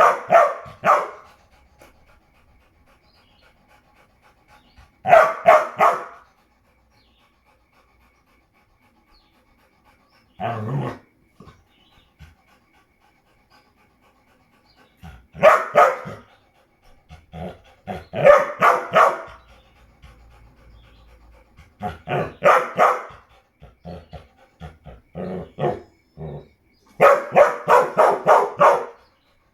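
A dog barking in short bursts of quick barks, about eight bursts with pauses of several seconds between them.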